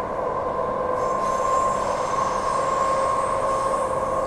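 Transperth A-series electric train heard from inside the carriage while running at speed: steady rumble with a constant whine. A faint high-pitched squeal joins about a second in.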